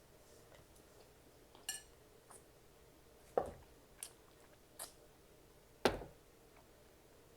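Close-up eating sounds of someone working meat off pig feet and neck bones: scattered short wet mouth clicks and smacks, with two louder knocks about three and a half and six seconds in.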